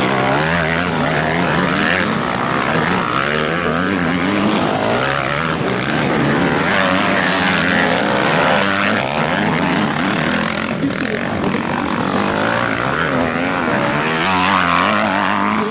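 Several motocross bikes' engines revving, their pitch rising and falling continually as the bikes race past together.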